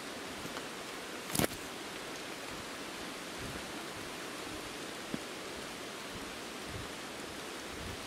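Steady rushing of a mountain stream, with one sharp knock about one and a half seconds in and a faint click near five seconds.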